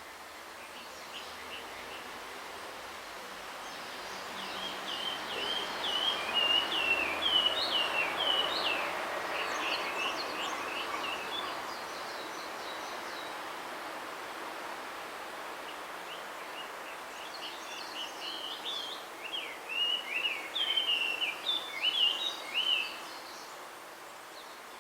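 Male blue rock thrush singing two phrases of quick, varied warbled notes, one a few seconds in and another near the end, courting a female. A steady hiss of background noise runs underneath, swelling during the first phrase.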